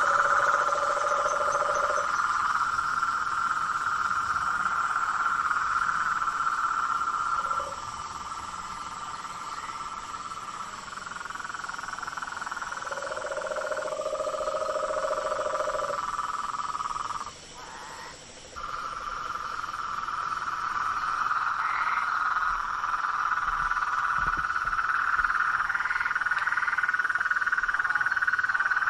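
Chorus of frogs calling, a steady high trilling with a lower croaking call joining for a couple of seconds at the start and again about halfway through. The chorus briefly falls away about seventeen seconds in, then resumes.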